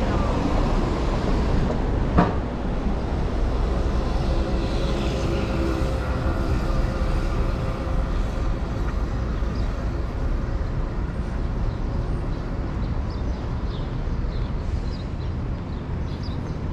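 City street traffic: a steady low rumble of passing vehicles, with one vehicle's engine note standing out from about four to eight seconds in, and a sharp click about two seconds in.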